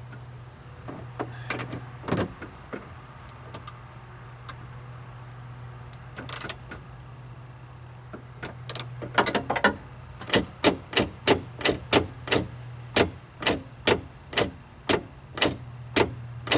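Clicking and knocking from hand work on a car's door latch assembly during reassembly. There are scattered clicks at first. From about ten seconds in comes a steady run of sharp clicks, about two a second. A steady low hum runs underneath.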